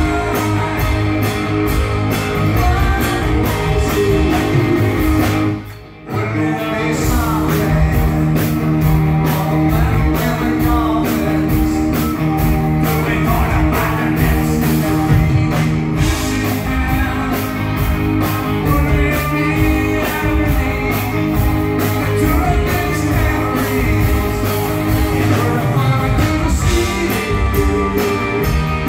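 Live rock band playing with electric guitar and a man singing. The band stops abruptly for about half a second about six seconds in, then comes straight back in.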